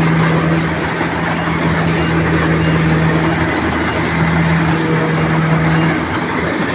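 Engine of a harvesting machine running steadily at constant speed, a loud, even hum that weakens briefly about halfway through and again near the end.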